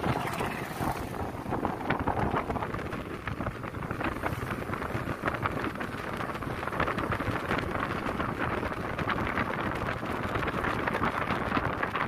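Wind buffeting the microphone over the steady running noise of a moving vehicle.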